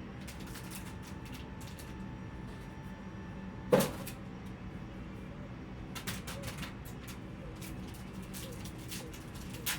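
Trading card box and packs being handled on a table: scattered light rustles and ticks, with one sharp knock about four seconds in.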